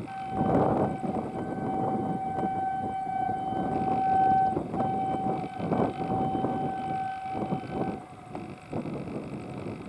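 Horn of an Indian Railways WAG-7 electric locomotive sounding one long steady note for about eight seconds, broken briefly about halfway through.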